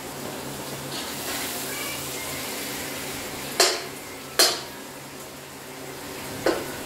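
Cooking in a pot: a faint sizzle while the food is stirred, with three sharp clanks of a utensil against the pot, two close together a little past the middle and one more near the end.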